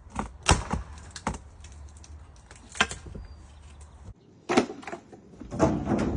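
Irregular sharp knocks and clicks of masonry gear being handled and set down, about half a dozen strikes over a low background hum.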